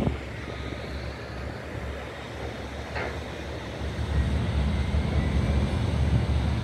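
Low, steady rumble of a high-speed catamaran ferry's engines and water jets as it manoeuvres, growing louder about four seconds in.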